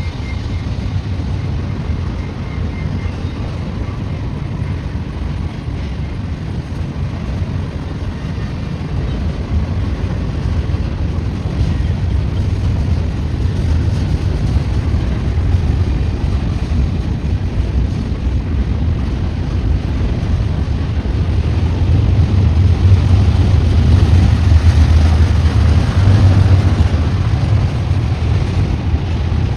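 BNSF westbound double-stack intermodal train on the move, a low diesel-locomotive and rail rumble that grows steadily louder as it approaches, loudest near the end.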